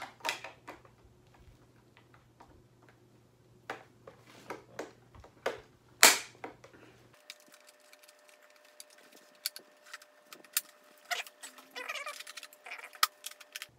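Hard plastic clicks and snaps as the side pivot plates of an Icon Airflite motorcycle helmet's visor mechanism are pressed back into place by hand. The clicks are scattered, with a sharper snap about six seconds in and a quick run of clicks near the end.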